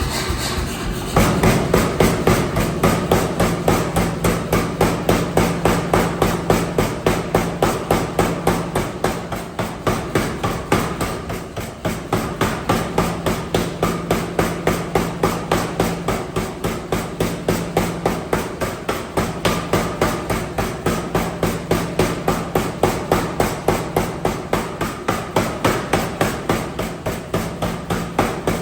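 Anyang 88 self-contained air power hammer striking a hot 7/8-inch round bar in rapid, even blows, about three a second, drawing it out to flat, with the hammer's motor humming underneath. The blows start about a second in and ease briefly near the middle.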